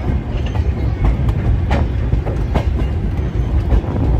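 Heritage railway train carriage rolling along, heard from aboard: a steady low rumble with irregular clacks and knocks from the wheels on the track.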